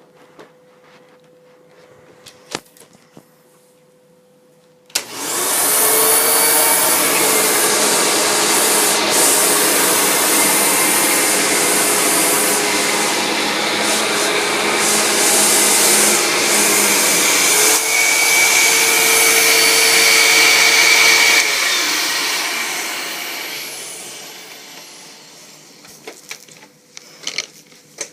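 Hoover U6634-900 vacuum cleaner switched on with a click about five seconds in. It runs steadily and loudly for about sixteen seconds, then is switched off and winds down over a few seconds. A few light clicks can be heard before it starts and after it stops.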